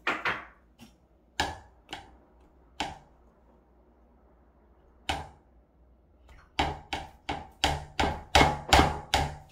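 Sharp knocks of kitchenware, a utensil striking a bowl or work surface: a few scattered knocks, then a quick run of about ten louder knocks, roughly three a second, near the end.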